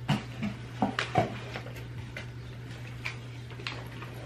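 Light clicks and taps from small objects being handled: several close together in the first second and a half, then a few spaced out. A steady low hum runs underneath.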